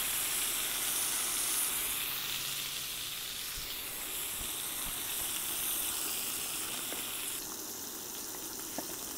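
Mangrove snapper fillets frying in butter and bacon grease in a stainless steel skillet: a steady sizzle that eases slightly toward the end. Near the end a metal spatula works under the fillets, with one light click.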